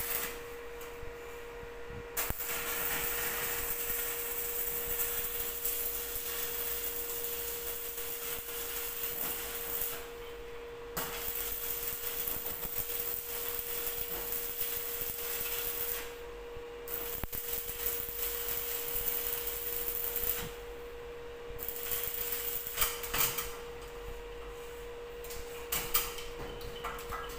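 Electric arc welding on a steel frame: the arc crackles and hisses in runs of several seconds, breaking off briefly about five times. A steady hum runs underneath, and a few sharp clicks come near the end.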